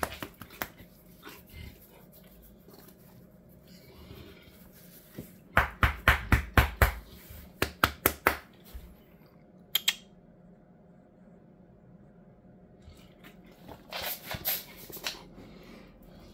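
A Boerboel (South African mastiff) makes a quick run of about ten short, sharp sounds about a third of the way in, then a couple more, and a softer cluster near the end.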